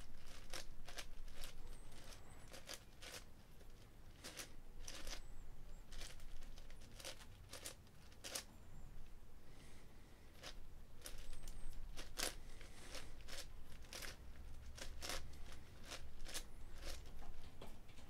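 Plastic layers of a Meilong 10x10 speed cube being turned by hand: faint, irregular clicks and scraping clacks, several a second, as slices are turned in and out to pair the last two edge pieces.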